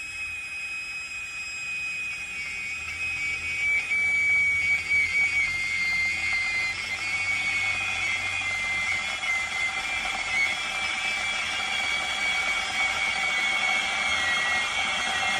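Electric glass kettle heating water: a steady rushing hiss with a thin high whistling tone that slowly drops in pitch, growing louder about four seconds in.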